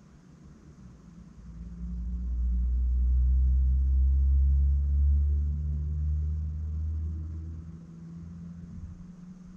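A motor vehicle passing close by, heard as a low rumble from inside a parked car. It swells up about a second and a half in, holds for several seconds, and fades away near the end.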